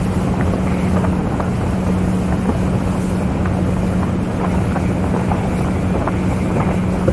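Motorboat engine running steadily at cruising speed, a constant low hum, with wind buffeting the microphone and the rush of water along the hull.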